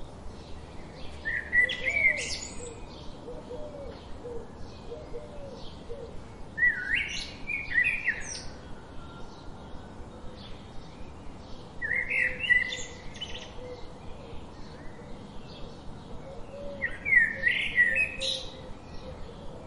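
Birdsong: a bird sings a short, loud phrase four times, about every five seconds, over a steady background of quick, regular chirps.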